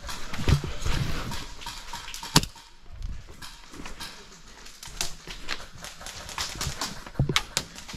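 Footsteps of a player moving over the ground, uneven low thumps with crackling of gear and ground cover, and one sharp click about two and a half seconds in.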